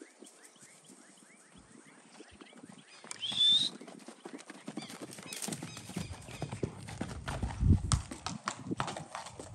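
Hoofbeats of loose horses, a paint horse gelding among them, moving over grass. The hoofbeats grow louder and heavier in the second half. A short, high rising whistle sounds about three seconds in.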